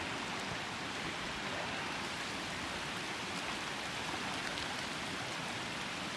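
Shallow creek water rushing steadily across a flooded road, an even hiss of flowing water.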